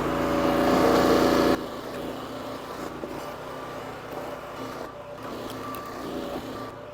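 A small engine running steadily, which cuts off abruptly about a second and a half in; after that only faint background noise remains.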